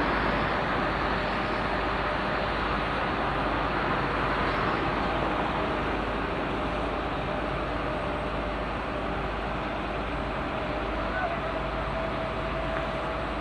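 Heavy construction machinery (mobile crane and truck engines) running steadily, with a thin steady whine that grows a little stronger near the end.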